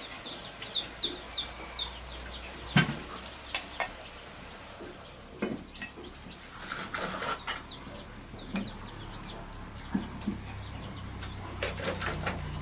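Chickens clucking, with a run of short high chirps in the first couple of seconds and scattered sharp knocks and clatters through the rest.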